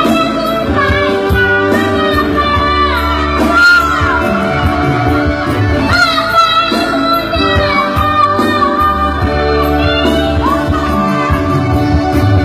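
A young child singing a melody over loud instrumental backing music.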